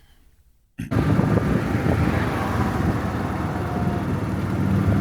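Rented golf cart running along, with wind on the microphone; the sound cuts in suddenly about a second in, after a near-quiet moment.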